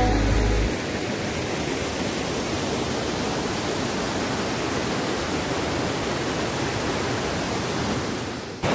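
Water rushing steadily over a small rocky waterfall cascade, an even, continuous rush. It breaks off abruptly near the end.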